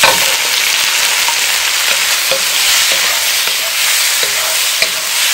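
Shrimp, squid, scallops and imitation crab sizzling loudly in hot oil in a wok with frying garlic, ginger and shallots, the sizzle bursting up as the seafood goes in. A wooden spatula stirring gives a few sharp clicks against the pan.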